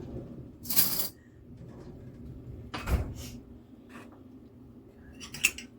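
Kitchen handling noises as a spoon is fetched: a short scrape just under a second in, then a single thump about three seconds in. A light click follows, and a brief clatter of utensils comes near the end, like a cutlery drawer being opened and shut.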